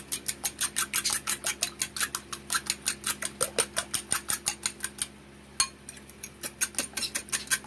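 Metal fork beating raw eggs in a small glass bowl: quick, even clinks of the fork against the glass, about six a second, with a short pause about five seconds in.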